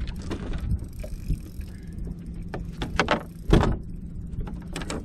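Knocks and thumps on a bass boat's deck as a largemouth bass is netted and brought aboard, the loudest about three and a half seconds in, over a steady low hum.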